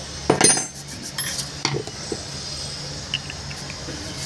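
A metal hand tool clinking against a cast metal pump or compressor housing while its end cover is pried at the seam: one loud ringing clink about half a second in, then a few lighter clicks and small taps.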